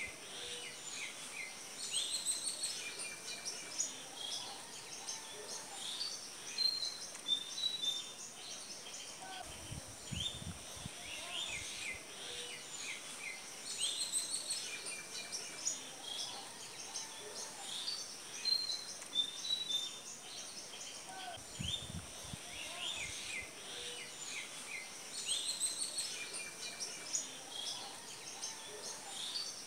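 Many birds chirping and twittering, short high calls in quick succession over a thin steady high tone, with the same stretch of birdsong coming round again about every twelve seconds.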